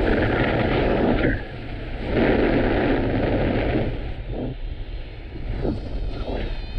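Strong wind buffeting the microphone in gusts, a loud rushing rumble that surges twice and then eases off.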